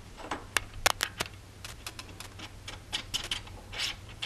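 Irregular light metallic clicks and taps of a steel drill rod and an ER32 collet being handled and fitted into the collet nut of an ER32 collet chuck, the sharpest few about a second in, with brief rustles of hands.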